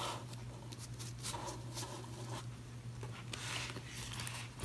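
Paper banknotes rustling and sliding softly on a wooden tabletop as they are squared into stacks, then a black cash-envelope binder being handled near the end, over a faint steady low hum.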